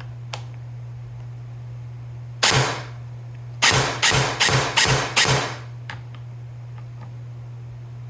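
V2-gearbox airsoft electric gun (AEG) test-firing: a single shot about two and a half seconds in, then five more in quick succession, about two and a half a second. A faint click comes near the start, and a steady low hum runs underneath.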